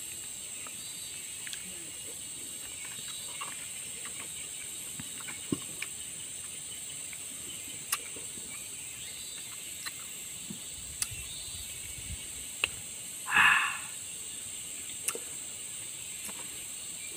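Steady high-pitched drone of insects, cicadas or crickets, with scattered sharp clicks throughout and a short, louder burst of noise about thirteen seconds in.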